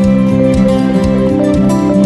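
Background music: soft new-age instrumental with plucked guitar and held notes.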